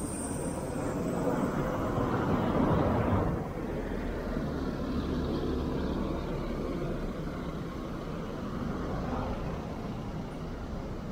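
A motor vehicle passing along the street, loudest about two to three seconds in and then falling away, over steady traffic noise.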